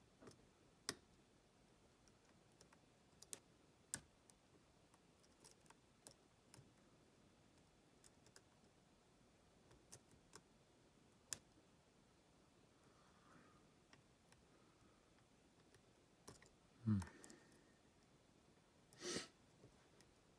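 Faint, scattered small clicks of a lock pick and tension wrench working the pins of a pin-tumbler challenge lock, as pins are set one by one. Two louder brief sounds come near the end.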